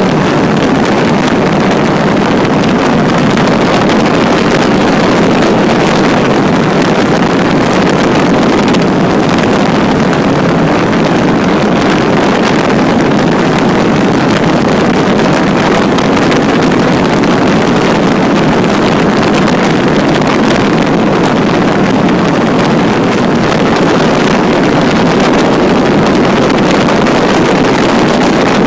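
Microlight trike's engine and pusher propeller running steadily in cruise flight, loud and unchanging, mixed with wind rushing over the pod and the microphone.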